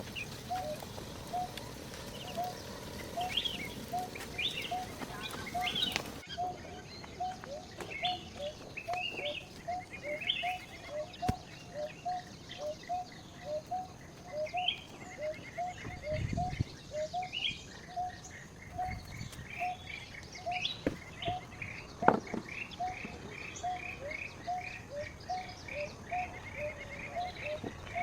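Birds calling outdoors: one short call repeats a little faster than once a second under scattered higher chirps and trills. A low knock comes about halfway and a sharp click a few seconds later.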